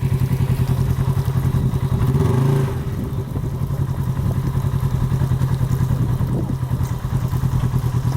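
Off-road vehicle's engine running with a steady, pulsing note, revving up briefly about two seconds in and then dropping back.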